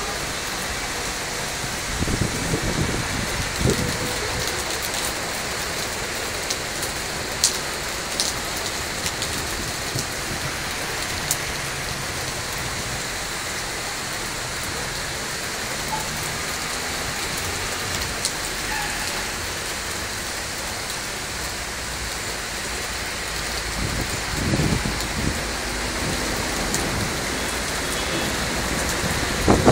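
Heavy rain pouring steadily on a street in a storm, with two low rumbles, one about two seconds in and another near the end, and a few sharp ticks.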